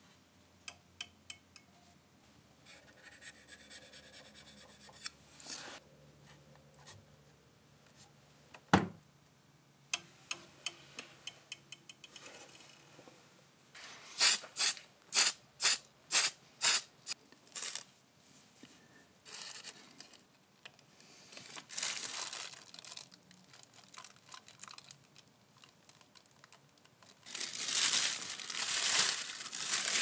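Masking tape being handled, torn and peeled from gauge needles, with crinkling and scattered clicks. About halfway through comes a quick run of about seven short hissing bursts from a spray-paint can, and near the end a longer stretch of tearing and rubbing.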